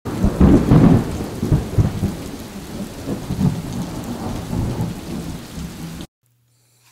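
Thunderstorm: steady rain with rolling rumbles of thunder, the loudest in the first second, cutting off suddenly about six seconds in.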